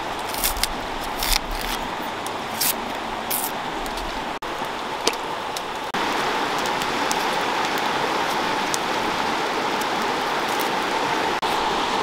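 Steady rush of flowing river water, with a few sharp clicks and scrapes of a knife cutting into green banana peel in the first few seconds. The rush gets louder about six seconds in.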